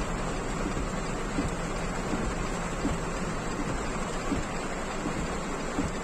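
Heavy rain drumming on a car's roof and windshield, heard from inside the cabin: a steady hiss with scattered louder drop hits.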